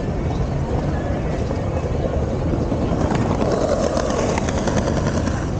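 City street ambience: a steady rumble of passing traffic, with a run of short clicks and knocks between about three and five seconds in.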